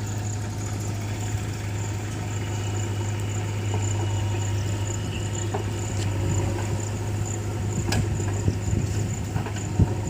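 Diesel engine of heavy machinery running steadily at a low, even hum, with a few short sharp knocks over it.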